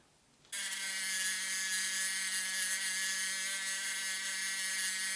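Handheld rotary tool running at a steady high speed, its abrasive wheel held against a diecast metal toy truck cab to clean up the cut edge. A steady whine that starts suddenly about half a second in.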